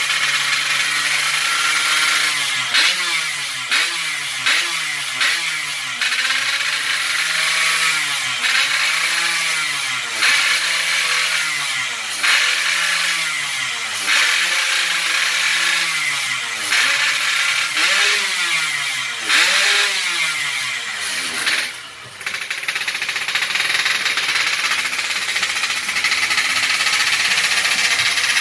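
Yamaha RX-King's two-stroke single-cylinder engine being blipped on the throttle over and over, its pitch rising and falling about once a second, then dipping briefly and running at a steady speed for the last few seconds. The engine is freshly rebuilt with a new block, piston and rings.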